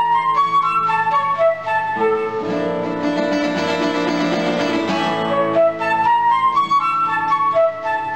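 Flute and classical guitar playing a duet: quick flute runs that climb in steps, the same rising phrase twice, over rapid, sharply struck guitar chords.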